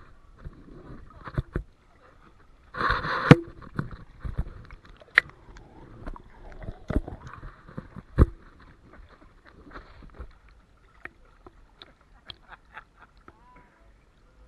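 Pool water lapping and splashing at a camera held at the water's surface, with many sharp knocks and a louder rush of splashing about three seconds in.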